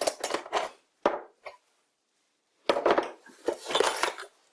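Small metal tools and parts clinking and clattering as they are taken out of a box and set down. There are two spells of clatter with a near-silent pause of about a second in between.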